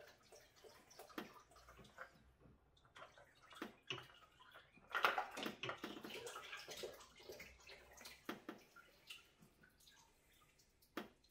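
Engine oil running and dripping out as the oil filter is unscrewed: irregular splashes and drips, heaviest about five seconds in and thinning out toward the end, with one sharp click near the end.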